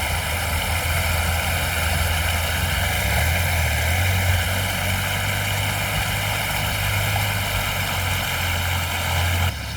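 Swollen river rushing past, a loud steady roar of water with a strong low rumble underneath.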